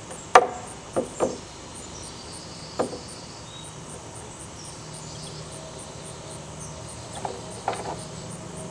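Sharp knocks and clacks of wood and bolts as the adjustable neck board of a wooden milking stanchion is unbolted and shifted to a new hole. The loudest comes just after the start, a few more follow in the first three seconds, and a short cluster comes near the end. Insects chirp in a steady, even pulse in the background.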